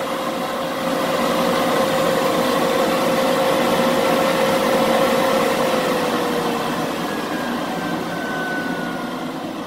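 Air conditioner and electric fans running: a steady whir with a hum that sags slightly in pitch about six seconds in, then fades a little.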